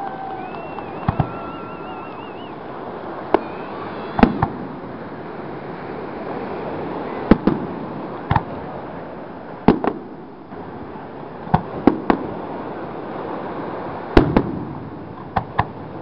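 Aerial fireworks shells bursting: sharp bangs every second or two, many in quick pairs, over a steady background hiss. A warbling whistle glides near the start.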